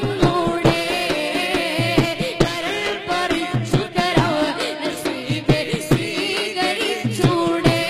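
A boy singing a Malayalam madh (devotional praise) song into a microphone, his wavering, ornamented melody carried over a steady drum beat.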